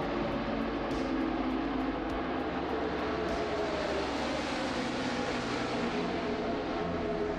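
A field of NASCAR Cup stock cars running at racing speed, their V8 engines blending into one steady drone.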